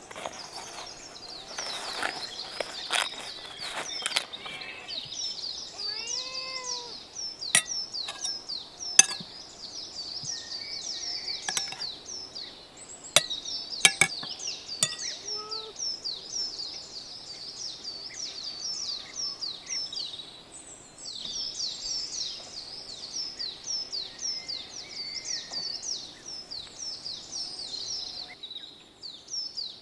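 Thin flatbread rustling as it is handled, then a metal spoon and cutlery clinking and scraping on china plates at a meal. Under it a continuous fast, high chirping runs throughout.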